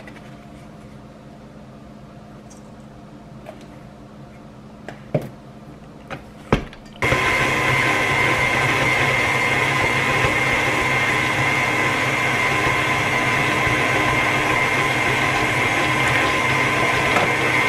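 KitchenAid Classic Plus tilt-head stand mixer: a few knocks, then about seven seconds in the motor switches on and runs steadily with a whine, its flat beater working a stiff mix of ground meat in the steel bowl.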